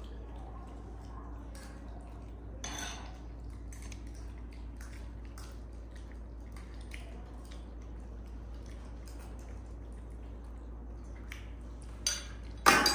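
Scattered light clicks and clinks of dishes and a spoon, with one louder, sharp clink near the end.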